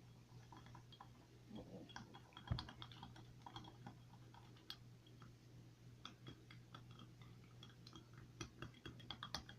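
Faint irregular clicking and tapping of a utensil stirring a homemade slime mix in a container. The clicks come faster near the end, over a low steady hum.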